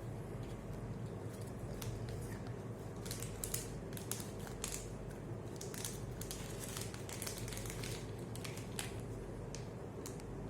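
Small handling noises: scattered clicks and rustles of packaging and test-kit items being handled, over a steady low hum.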